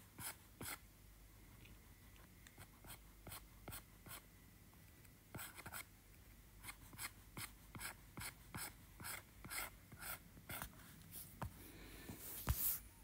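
Stylus tip tapping and scratching on an iPad Pro's glass screen during sketching: faint, irregular clicks, a few a second. There is a short pause a little after four seconds in and a louder knock near the end.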